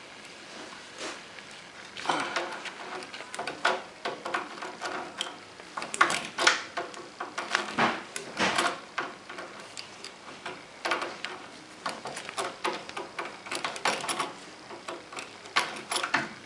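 Irregular metallic clicks and short scrapes of a wrench working on a car's brake hose fittings as they are loosened, coming in several bursts.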